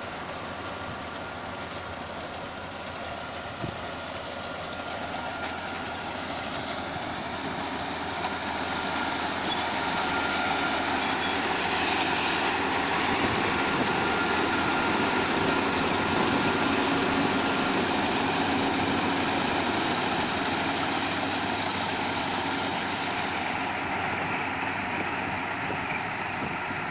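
Half-feed combine harvester running: a steady mechanical din of engine and working machinery with a faint high whine, growing louder over the first ten seconds or so and then holding steady.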